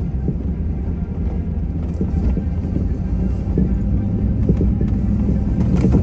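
Four-wheel-drive vehicle's engine running under load with a steady low rumble as it pushes through deep snow, with a few knocks near the end.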